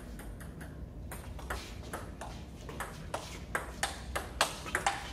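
Table tennis rally: a quick run of sharp clicks as the ball strikes the rubber-faced paddles and bounces on the table top, the hits louder in the second half.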